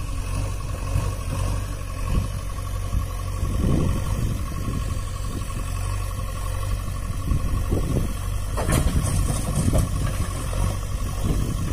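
Diesel engines of a JCB 3DX backhoe loader and a tractor running steadily while the backhoe loads a trolley, with a brief sharp noise about nine seconds in.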